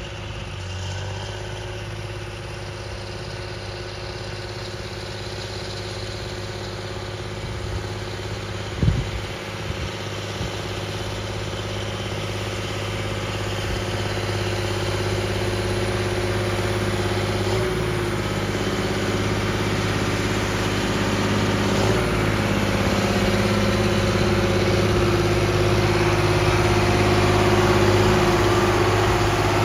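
Vehicle engine running steadily, getting gradually louder, with one sharp knock about nine seconds in.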